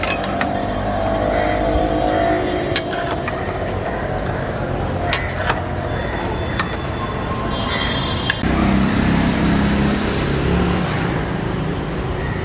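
Gas burner roaring steadily under a large aluminium pot of curry gravy, with a metal ladle knocking and clinking against the pot several times as the gravy is stirred.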